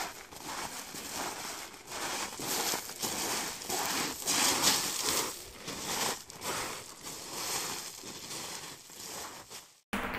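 Footsteps through dry grass and undergrowth at a walking pace, one scuffing step after another. The sound drops out abruptly near the end.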